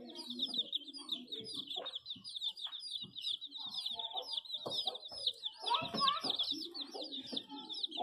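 A brood of chicks peeping non-stop, many high chirps overlapping, with lower clucking calls underneath.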